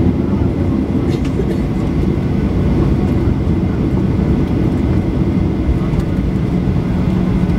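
Cabin noise of a taxiing Boeing 737-800: its CFM56-7B turbofan engines at taxi power, heard from inside as a steady low-pitched noise.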